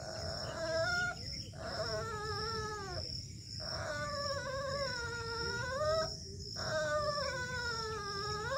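Young puppy whining in a run of about four long, drawn-out cries, each a second or two long, their pitch dipping and rising again.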